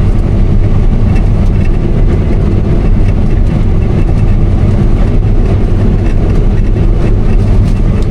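Case IH 8120 combine harvester running under load while cutting wheat: a steady, loud low machine drone.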